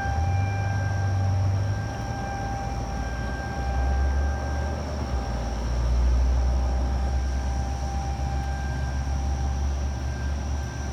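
Outdoor tornado warning siren sounding a steady wail. Its tone fades in the middle and swells back near the end, over a deep low rumble that is loudest around the middle.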